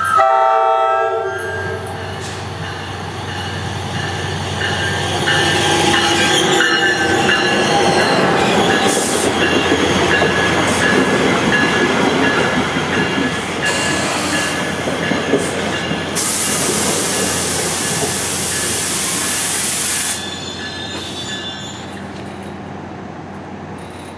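An NJ Transit ALP-45DP locomotive's Nathan K5LA horn gives a blast that ends about a second and a half in. Then the locomotive and its passenger coaches roll past, with wheels squealing on the rails and a loud hiss for about four seconds past the middle.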